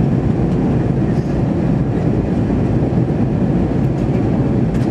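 Steady, loud cabin drone of an Airbus A320-212 in flight: engine and airflow noise heard from a window seat, even and unchanging.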